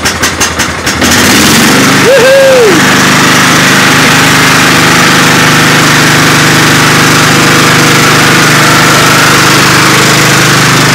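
Craftsman riding lawn tractor's engine cranking on the electric starter for about a second, then catching and running steadily. It is a cold start on choke, and it fires right up.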